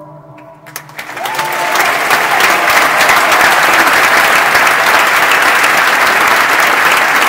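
An orchestra's final sustained chord dies away, then a theatre audience breaks into applause about a second in. The clapping builds quickly to loud, steady applause, with a cheer near the start.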